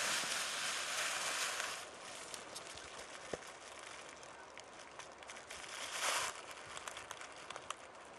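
Faint rustling and crinkling with scattered small clicks. A soft hiss of noise fills the first two seconds and returns briefly about six seconds in.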